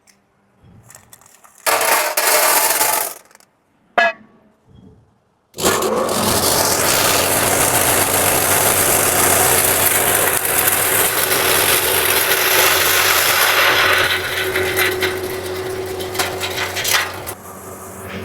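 Stainless steel sugar grinder: a short loud burst of noise about two seconds in and a sharp click about four seconds in, then the machine running steadily from about five and a half seconds, a loud even grinding hiss over a low hum, easing off near the end.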